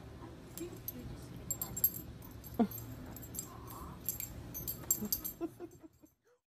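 A child and a small dog moving about on a couch: soft rustling and light clicks over a low hum, with one short falling whine about two and a half seconds in. The sound cuts off shortly before the end.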